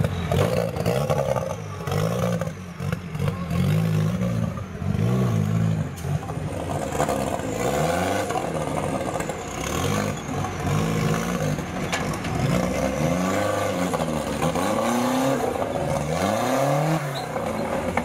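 Off-road competition 4x4's engine revved up and down again and again as the truck crawls over rocks, with scraping and clattering of the tyres and chassis on rock.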